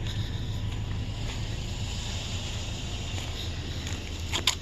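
Steady low rumble with a hiss over it, then a few sharp wooden knocks near the end as old boards from a lumber pile are handled.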